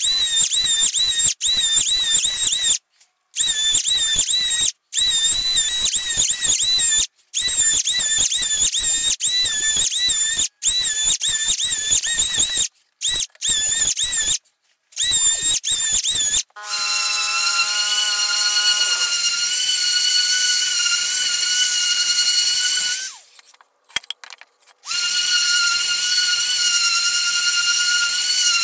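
Cordless electric hand planer making repeated passes along a pine board, its high whine wavering and cutting off between passes. From about halfway a random orbital sander runs with a steady high whine, stopping briefly a few seconds before the end.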